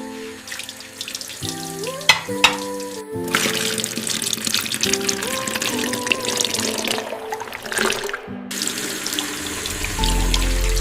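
Background music with a simple melody of held notes, with two sharp clicks a little after two seconds in. A loud hissing rush comes in about three seconds in and cuts off about five seconds later.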